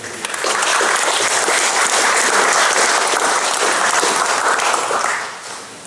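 Audience applauding, starting just after the start, holding steady and dying away near the end.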